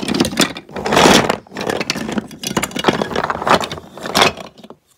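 Wooden toy train track pieces clattering and knocking together as a hand rummages through a heap of them, a dense run of clacks and scrapes that stops near the end.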